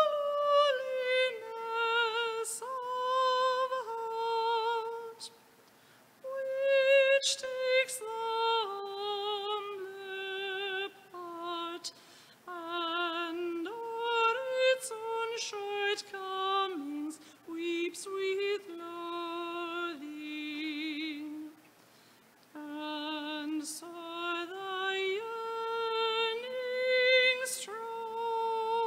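A solo female voice singing a slow melody in long held notes with vibrato, pausing twice between phrases.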